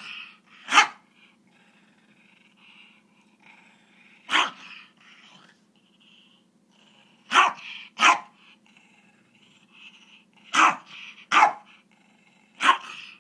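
Silky terrier giving short, sharp barks at a pestering puppy, eight in all, singly and in quick pairs a few seconds apart.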